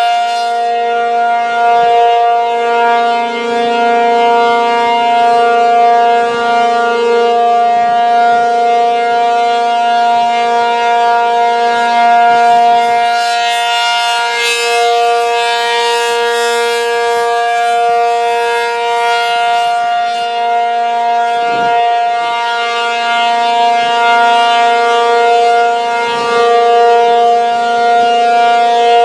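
ACA P-50 dual-tone outdoor warning siren sounding its steady Alert signal: a loud, held chord with no rise or fall in pitch. Its loudness and brightness swell and fade slowly as the rotating siren sweeps toward and away from the listener.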